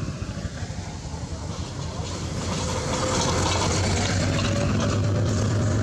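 A motor engine running with a steady hum, growing louder about two seconds in and then holding.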